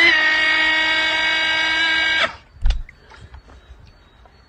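Electric toy water blaster whining steadily for about two seconds as it charges, cutting off suddenly, then a dull thump as it fires a ball of water.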